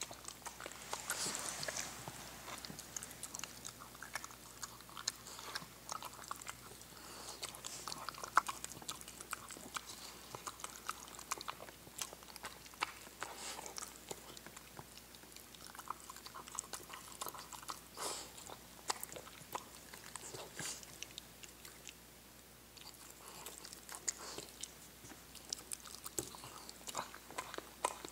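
A hairless Xoloitzcuintli dog eating chopped food from a bowl: irregular wet chewing and licking with many sharp little clicks. The dog has only four fangs and no other teeth.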